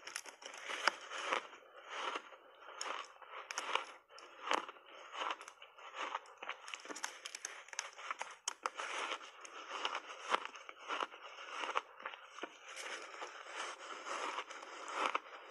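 Close-miked crunching and chewing of refrozen purple block ice coated in matcha milk powder: a steady, dense run of crisp crackles and crunches as the ice breaks between the teeth.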